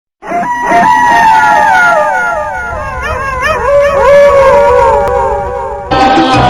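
Several overlapping canine howls, long wavering calls that glide slowly downward. They cut off abruptly about six seconds in, when rhythmic percussive music starts.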